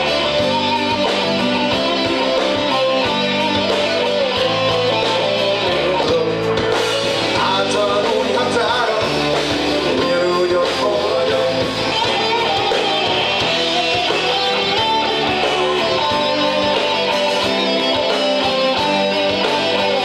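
A rock band playing live, with electric guitars over bass and drums, and a man singing.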